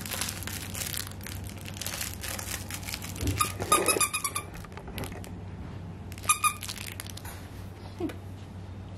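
A squeaky dog toy squeaked twice, about four seconds in and again a couple of seconds later, over rustling and handling noise.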